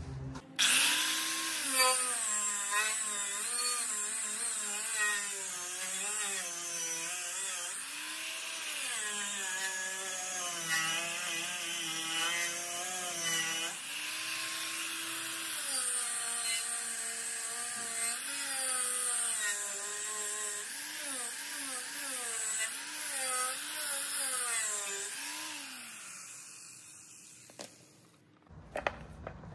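Electric angle grinder with a wire wheel brushing the aluminium hull of a tinny, buffing the metal bare around a hairline crack to prep it for welding. The motor's whine wavers up and down over a steady hiss of wire on metal, then winds down and fades near the end.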